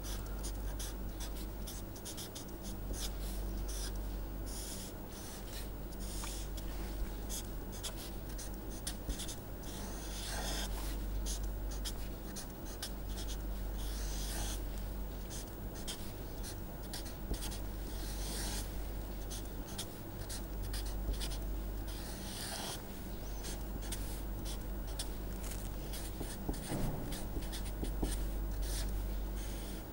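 Felt-tip permanent marker writing on paper in a run of short scratchy strokes with brief pauses, as boxes, arrows and circles are drawn. A steady low hum runs underneath.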